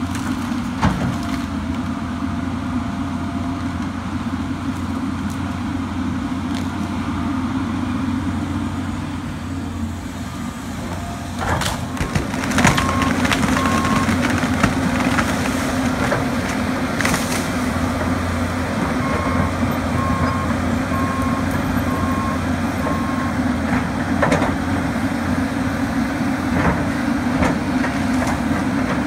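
John Deere tracked excavator's diesel engine running steadily under load, with sharp cracks of breaking wood about twelve seconds in and again a few seconds later as it pushes into trees. A series of short regular beeps, a machine alarm, sounds twice in the second half.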